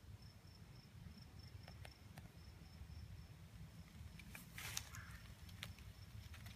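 Near silence: an insect chirping faintly in a steady, evenly pulsed high note, over a low rumble. There are a few soft clicks and a brief rustle of dry leaves about four and a half seconds in.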